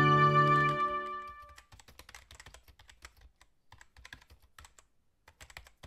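Held notes of intro music die away within the first second or so, then faint, irregular computer-keyboard typing clicks.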